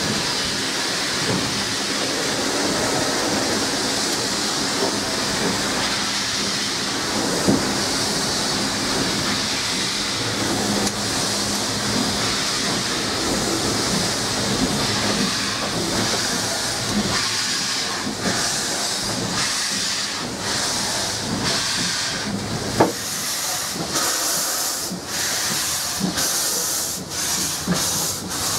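Steam hissing steadily in the cab of NZR KA class 4-8-4 steam locomotive KA 942, an oil-fired engine. About two-thirds of the way through, the hiss starts to pulse in a quick rhythm as the locomotive moves off, steam blowing from its cylinder drain cocks.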